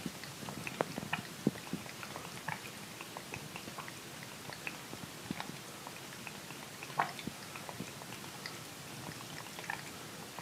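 A domestic cat lapping water from a bathtub faucet spout: a run of quick, irregular wet licks and clicks from its tongue, a few a second, over the faint steady sound of the running water.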